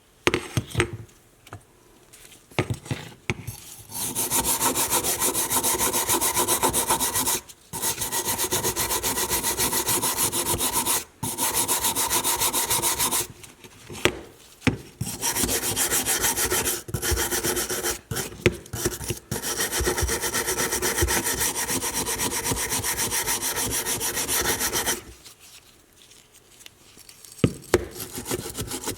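Steady abrasive rubbing on a vintage leather hole punch during its restoration, in long runs of several seconds broken by short pauses and a few knocks.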